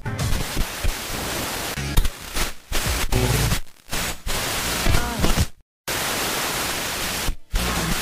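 AM radio being tuned between stations: static hiss with brief snatches of music and wavering whistle tones. It cuts out several times, once to complete silence a little past halfway.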